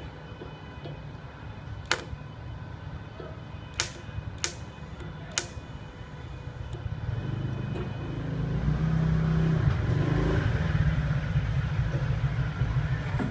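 Inverter TIG welder at 40 A on thin stainless steel: a few sharp clicks, then from about seven seconds in a steady, louder low buzz of the welding arc.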